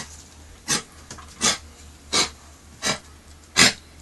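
Old English Sheepdog with kennel cough coughing in a run of five short coughs, evenly spaced about three-quarters of a second apart: a coughing fit from the upper respiratory infection.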